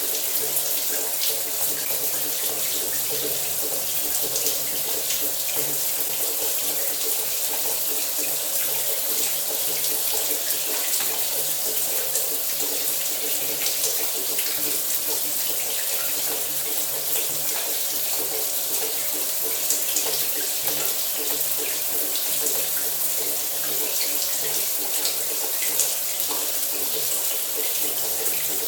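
Shower running steadily: a continuous spray of water hissing and splashing, with no change in flow.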